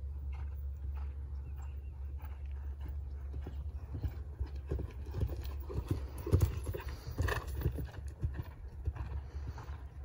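Horse's hoofbeats on sandy arena footing as it is ridden, a steady rhythmic thudding that grows loudest about halfway through as the horse passes close by, then fades as it moves away. A steady low rumble runs underneath.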